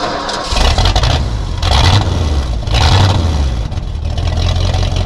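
An engine running loudly, with its level rising and falling in surges about once a second.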